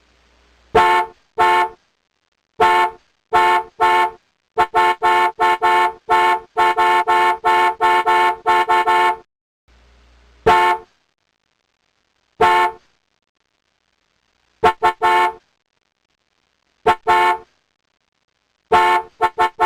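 Car horn honking in short beeps: a couple of spaced beeps, then a rapid run of many quick honks through the middle, then single and double beeps a second or two apart.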